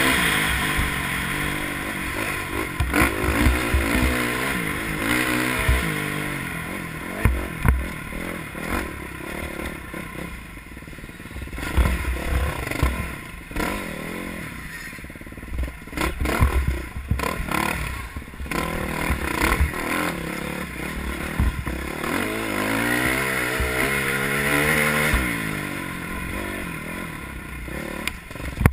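Dirt bike engine revving up and down in short bursts as it climbs a rocky trail, with thumps and clatter from the bike jolting over rocks.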